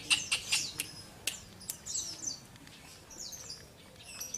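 Lovebird chirping: high, short calls that sweep downward, with a quick run of sharp chirps and clicks in the first second and a half, then a few scattered calls.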